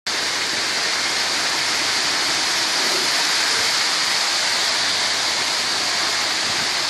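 Wet concrete sliding down a ready-mix truck's discharge chute and spilling onto the slab: a steady, even rushing hiss that cuts in and out abruptly.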